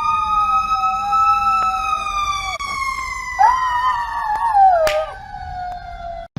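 A siren's long slow wail, rising and then sliding down, with a dog howling along underneath in two drawn-out, wavering howls. Both stop abruptly just before the end.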